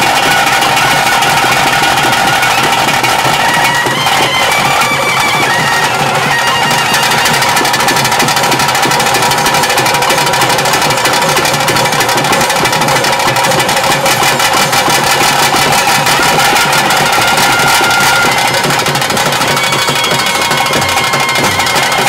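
Loud, continuous traditional music of a Tulu daiva nema ritual: a reed pipe holds a steady droning note, with short higher phrases about four seconds in and again near the end, over dense, fast drumming.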